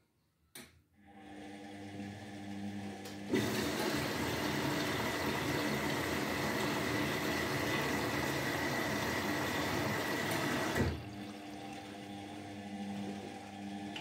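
Indesit front-loading washing machine working through its cycle: a click, then a steady hum, then a loud rush of water through the machine that starts suddenly about three seconds in and cuts off about eleven seconds in, with the hum carrying on after it.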